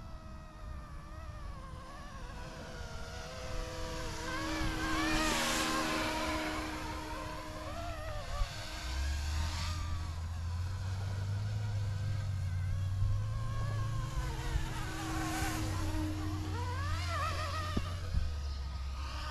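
YUXIANG F09-S RC scale helicopter in flight: the whine of its brushless direct-drive rotor motor, rising and then falling in pitch as it passes close twice, about five and fifteen seconds in.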